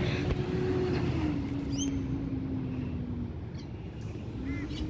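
Motor vehicle engine running, a steady drone over low rumble that drops in pitch about a second in and climbs again near the end, as when easing off and then accelerating. A couple of short bird chirps sound over it.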